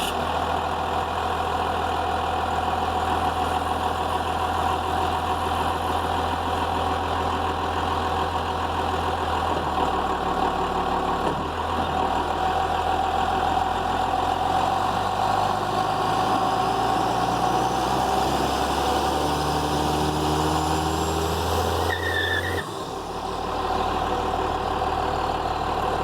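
12-valve Cummins 5.9-litre inline-six turbo diesel idling, heard at its stock exhaust. It runs at a steady idle, with a slight rise and fall in engine speed around 18 to 21 seconds in and a sudden change in the sound at about 23 seconds.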